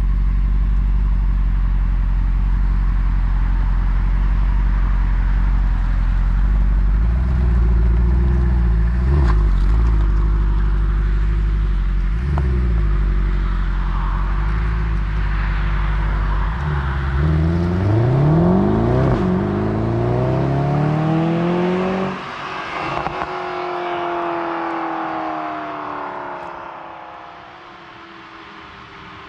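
Mercedes-Benz SLS AMG Roadster's 6.2-litre naturally aspirated V8 idling steadily, with two short throttle blips about nine and twelve seconds in. It then accelerates hard through several gears, its pitch climbing again and again, and fades as the car goes away near the end.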